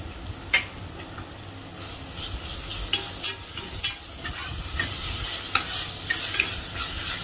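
Onions and ginger-garlic paste sizzling in hot oil while a spoon stirs them, knocking against the pan several times. The sizzle grows louder about two seconds in.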